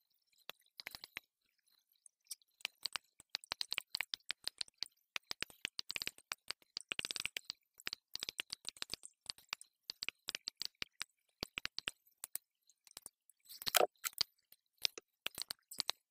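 Dense, irregular run of tiny clicks and crackles: handling and movement noise played back in fast motion, with a louder burst near the end.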